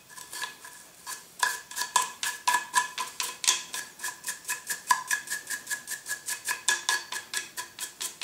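An old toothbrush scrubbing briskly around the ejectors of a Browning 325 shotgun's barrels, its bristles scraping on the metal in quick strokes, several a second. The strokes start lightly and pick up in earnest a little over a second in.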